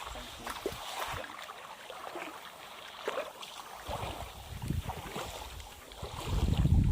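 Shallow water sloshing and trickling, with small splashes, as someone wades and scoops for fish. Wind rumbles on the microphone in two surges in the second half, the louder one near the end.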